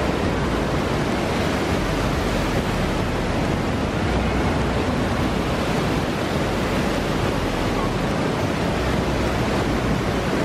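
Water of a large mountain waterfall rushing in a steady, loud, unbroken hiss.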